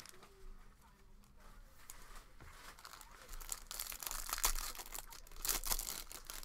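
A trading card pack's wrapper being torn open and crinkled, in crackly bursts that grow louder over the middle and latter part.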